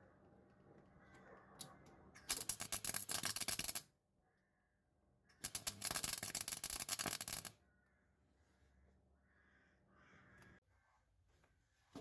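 Two bursts of a rapid, harsh metalworking tool working on sheet steel, the first about one and a half seconds long and the second about two seconds.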